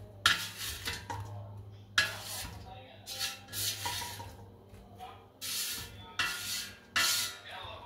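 A spatula scraping roasted potato cubes out of a nonstick air fryer basket, with the potatoes clattering into a terracotta dish. It makes about eight or nine irregular scrapes over a low steady hum.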